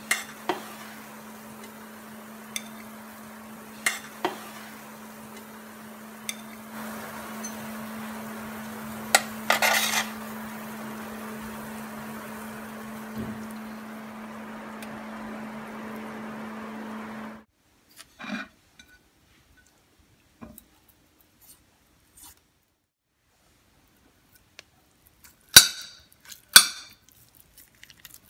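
Kitchen utensil sounds: a steady hum with a hiss under it, broken by sharp clinks of metal on cookware, which cuts off suddenly about two-thirds of the way in. Then come light taps and two sharp clinks of a knife against a ceramic plate as boiled potatoes are cut.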